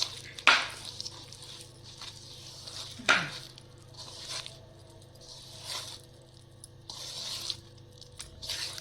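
Wet fish-fry masala paste being mixed by hand: repeated wet squishing strokes about a second apart, with two louder squishes about half a second and three seconds in.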